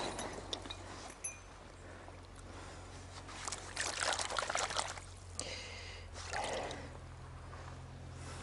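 Stream water splashing and trickling, swelling twice, about three and six seconds in, over a steady low hum.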